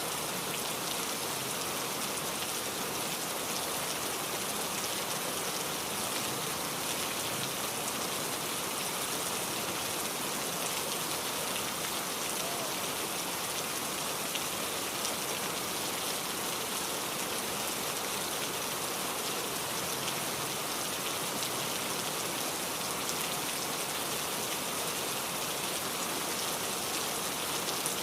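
Heavy rain falling steadily: a dense, even hiss with fine scattered drop taps throughout.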